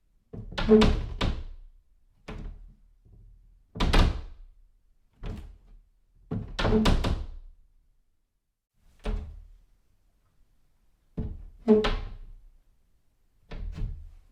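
Doors being shut one after another, each a short thud. About nine separate closes, a second or two apart, some landing as two quick knocks.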